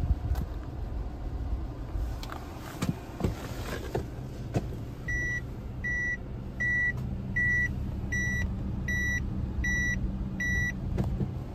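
Subaru Forester's EJ20 engine idling, heard inside the cabin, with a few light clicks. From about five seconds in, the in-cabin reverse warning buzzer gives eight short, evenly spaced beeps, about one every three quarters of a second, the sign that reverse gear is selected.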